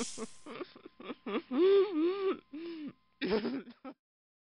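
A woman's voice making wordless sounds: short laughing syllables, then two drawn-out vocal sounds that bend in pitch, and a last short burst.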